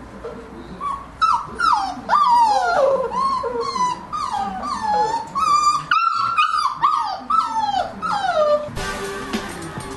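Several four-week-old flat-coated retriever puppies whining and yelping, a stream of short, high, falling whimpers that overlap one another.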